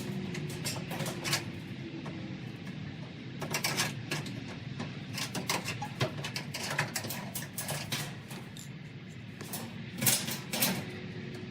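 Irregular clicks and clanks of dryer parts being handled and fitted, over a steady low hum.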